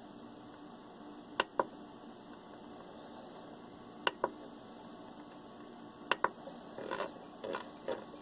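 Rotary encoder knob on a 3D printer's LCD controller clicking as it is worked through the menus: three pairs of sharp clicks as it is pressed and released, then a run of softer ticks near the end as it is turned to set a value. A steady low fan hum runs underneath.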